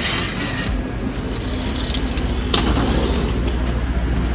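Airport apron bus running with a low steady engine hum, with mechanical clicks and rattles and a brief hiss at the start.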